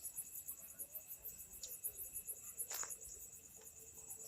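Crickets chirping faintly in a fast, even pulse, with one brief click a little past halfway.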